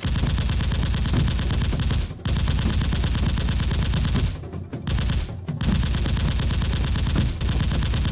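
Rapid automatic-gunfire sound effects in long bursts, each a fast, even string of shots, broken by short pauses about two, four and a half, and five and a half seconds in.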